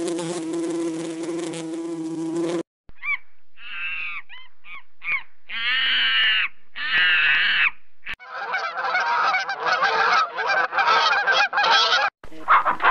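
A steady buzz of a flying insect that cuts off about three seconds in, followed by a run of honking waterfowl calls: several short calls, then two longer ones. From about eight seconds in, many birds call at once in a dense chatter.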